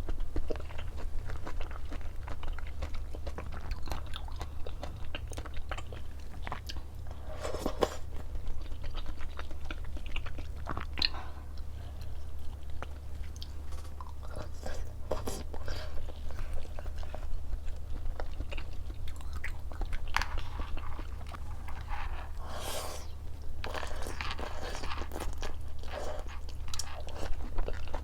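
Close-miked eating sounds: irregular crunching bites and chewing of crispy food, over a steady low hum.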